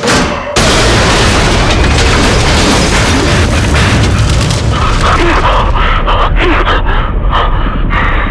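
A sudden loud boom about half a second in, then a continuous heavy din of combat noise with many sharp cracks, like a blast followed by gunfire, as staged for a war-film trailer.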